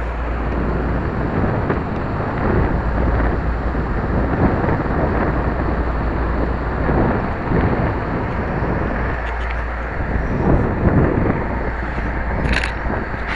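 Wind buffeting a small camera's microphone while it moves outdoors: a steady rushing noise with a deep rumble underneath. A few sharp clicks come near the end.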